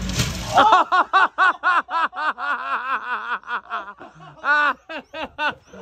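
A person laughing hard in rapid, high-pitched bursts, about four a second. Just before, a John Deere ride-on mower's engine hum and a short crunching burst cut off about half a second in as the mower drops into a hole.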